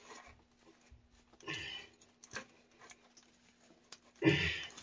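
Faint rustling and scattered light clicks of a gloved hand working around a pipe, with a short louder scuffing noise about a second and a half in and another near the end, over a faint steady hum.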